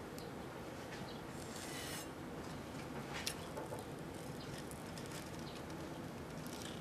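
Faint scratching and small crisp clicks as a kitchen knife cuts down through Froot Loops cereal and a gelatin bowl. The sharpest click comes a little past the middle, over a steady low hum.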